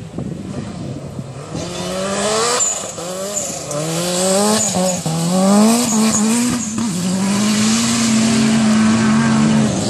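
A 4x4 autocross car's engine revving hard on dirt. Its note climbs and drops in pitch several times, then holds a steady high note near the end, growing louder as the car comes closer.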